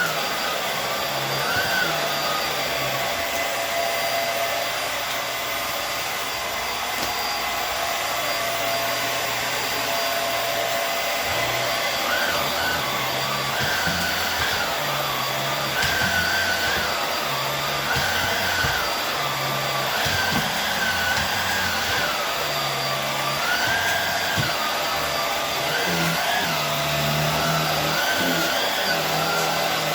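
Hoover Air Steerable WindTunnel upright vacuum cleaner running steadily on a rug, its motor whine wavering up and down in pitch.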